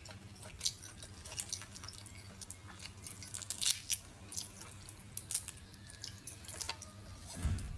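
Cooked crayfish shells being cracked and peeled apart by fingers: a run of short, sharp crackling snaps, mixed with close-up chewing. A dull thump comes near the end.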